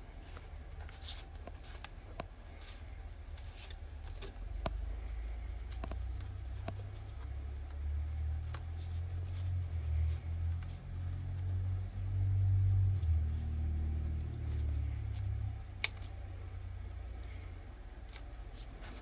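Light clicks and scrapes of a Morgan silver dollar being worked into a tight-fitting hole in a Dansco coin album, with a low handling rumble that swells in the middle and dies away a few seconds before the end. A sharper click sounds a few seconds before the end.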